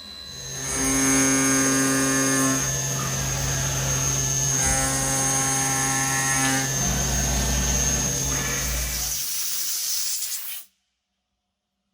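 Optimill F80 CNC milling machine cutting aluminium: the spindle and cutter run with a steady high whine and hum, the tones shifting a few times, then the sound cuts off abruptly about ten and a half seconds in.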